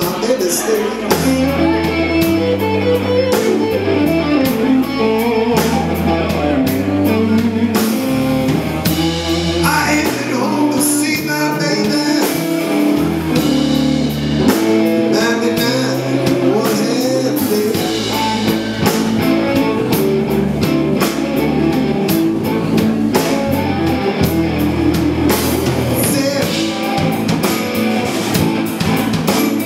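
Live blues band playing a slow blues: electric guitar over a walking bass line and a drum kit.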